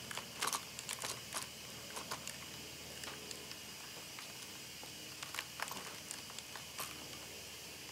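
Scattered plastic clicks and taps from a Dyson Ball Animal vacuum's cleaner head as its sole plate is pressed down and the side clip is worked into place. There is a cluster of clicks in the first second or so and more around five to seven seconds in.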